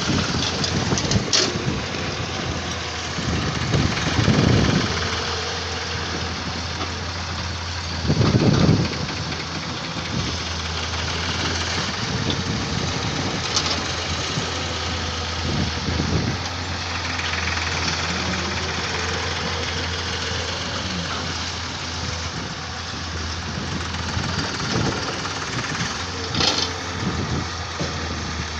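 Samsung excavator's diesel engine running steadily while it works, with louder low surges about four and eight seconds in and a few sharp clicks.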